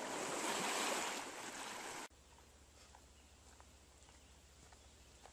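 Steady rushing noise at the lakeshore that cuts off suddenly about two seconds in. Faint scattered footsteps of a backpacker on a leaf-covered dirt trail follow.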